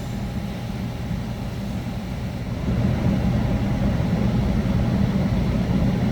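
Haas CNC lathe running through its program with a steady low machine hum that grows louder about two and a half seconds in.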